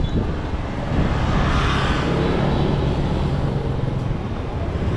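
Street traffic: motor vehicle engines running, with one passing close and swelling about one to two seconds in.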